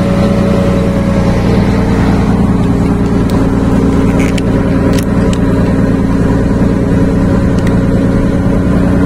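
Scania 111 truck's diesel engine running steadily as a tractor tows the truck through soft sand, with a few faint sharp ticks in the middle.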